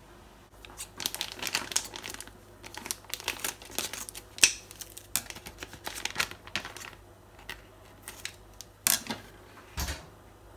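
Plastic bag of tempura flour crinkling as it is handled: a dense run of crackles for several seconds, then scattered crinkles. A sharp click and a dull thump come near the end.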